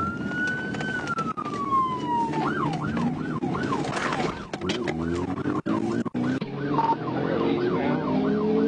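Police cruiser siren sounding a slow rising-and-falling wail, then switching about two and a half seconds in to a fast yelp. Under it runs the patrol car's engine and road noise, the engine note climbing as the car speeds up in the second half.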